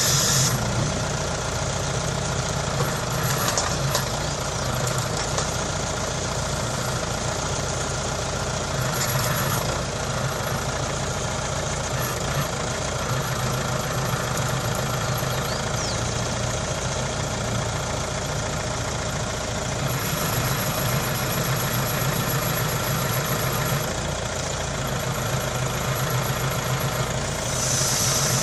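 Engine of a forestry grapple loader running steadily as it unloads eucalyptus logs, a low even hum with a couple of brief louder moments.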